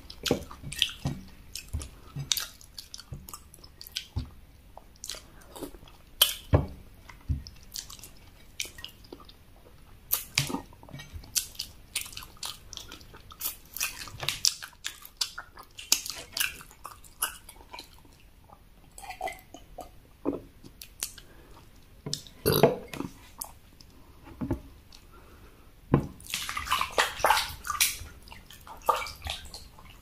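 Close-miked chewing and wet mouth smacks of someone eating eba (cassava garri) with egusi soup by hand: irregular sharp clicks and squelches. Near the end come denser gulping and slurping sounds of drinking from a bowl.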